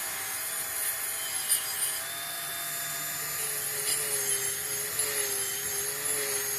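Dremel rotary tool running steadily against a stripped diecast metal toy car body: a whirring motor whine over a scratchy brushing hiss, bringing the bare metal up shiny. The whine drops a little in pitch about halfway through.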